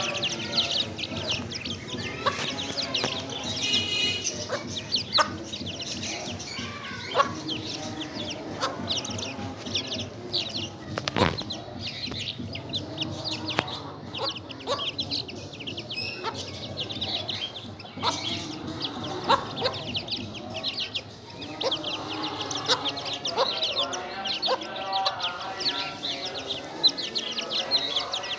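A brood of Aseel chicks cheeping constantly in short, high peeps, with a hen clucking lower among them. A few sharp clicks are heard, the loudest about eleven seconds in.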